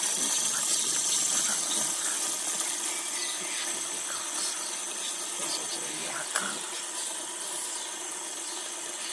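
Fidget spinner whirring steadily on its ball bearing as it spins down, slowly growing fainter.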